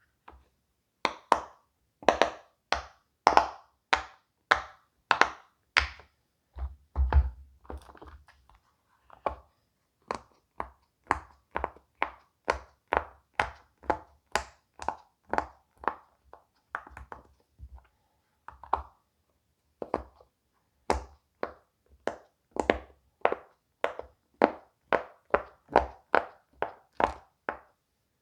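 Silicone pop-it fidget toy bubbles pressed one after another, a steady run of short pops about two a second, with a heavier thud about seven seconds in.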